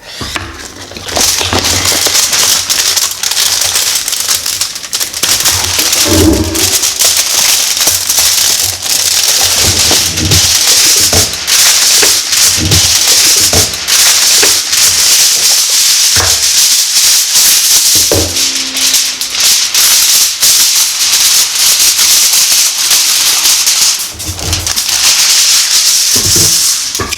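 Aluminium foil being crinkled and handled: a continuous loud crackling with many sharp snaps, and a few duller knocks.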